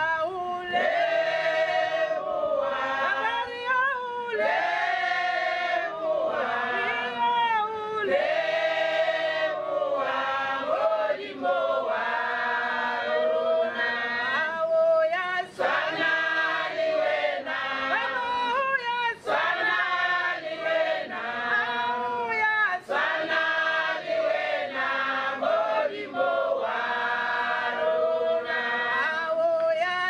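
Choral singing: a group of voices singing in phrases, used as the music track.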